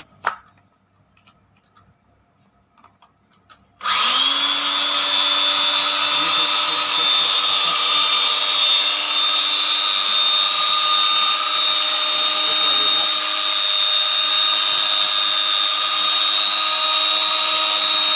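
A click, then about four seconds in a belt grinder is switched on and comes up to speed almost at once, running steadily with a high whine.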